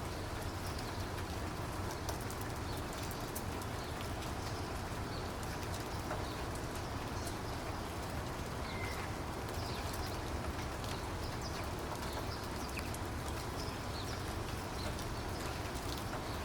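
Steady rain falling, a constant hiss with many individual drops ticking, and a few short, faint high chirps scattered through it.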